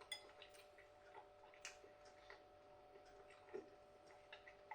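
Near silence with a few faint, scattered clicks and taps of eating a microwave meal from its tray, over a faint steady hum.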